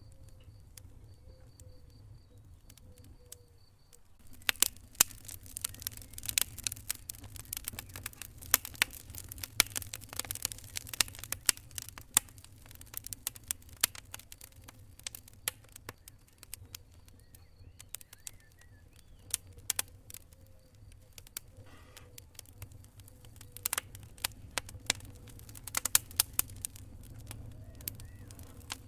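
Wood fire crackling in a fireplace: sharp pops and snaps over a low steady rumble of the flames. The pops are sparse for the first few seconds, then come thick and fast from about four seconds in.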